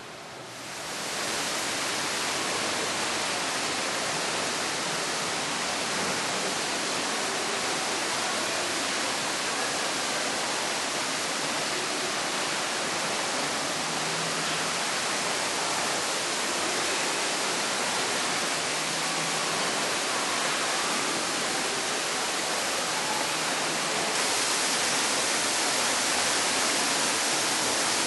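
Steady rushing of running water: an even hiss with no pitch or rhythm, turning a little brighter and louder about 24 seconds in.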